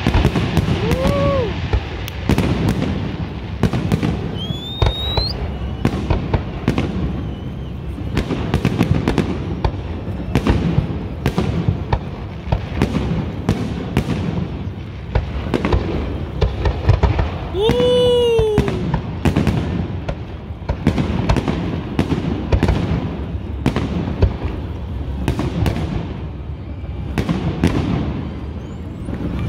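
A professional aerial fireworks display, with shells bursting in rapid, overlapping bangs over a continuous low rumble and no pause. Crowd voices run underneath.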